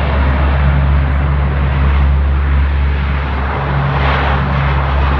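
C-130 Hercules four-engine turboprop transport's engines and propellers making a steady low drone, with a broader rushing noise swelling up about four seconds in.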